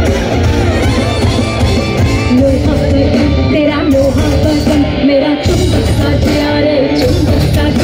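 Loud live concert music with a singer over an amplified band and heavy bass.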